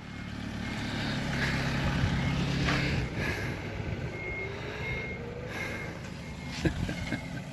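A vehicle engine running steadily, with a short high beep repeating about every 0.7 s in the second half, like a reversing alarm.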